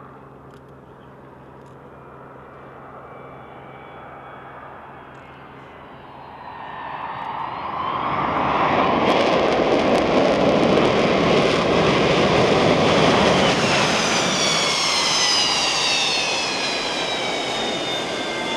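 Boeing 727's three JT8D turbofan engines: a distant jet hum on approach, swelling about six seconds in to a loud roar as the jet lands and rolls out. Near the end several high whines slide down in pitch.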